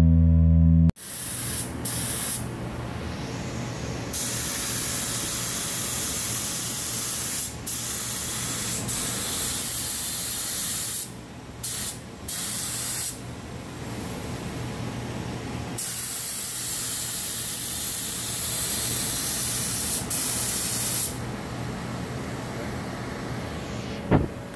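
Gravity-feed compressed-air spray gun spraying a coat onto a car part: a loud steady hiss in long passes, broken by short pauses each time the trigger is let go. Music plays for about the first second, then stops.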